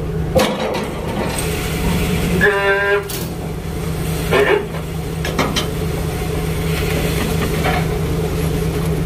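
Purse seiner's engine running steadily under way, with wind and churning wake noise. A brief, steady, horn-like tone sounds about two and a half seconds in.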